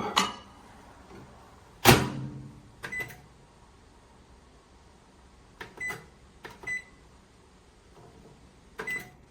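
Galanz retro microwave oven being operated: a loud thump about two seconds in as the door shuts, then several short keypad beeps.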